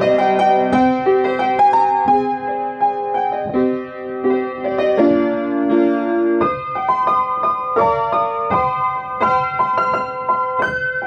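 Background music played on piano: a melody of struck notes over chords, at a steady moderate pace.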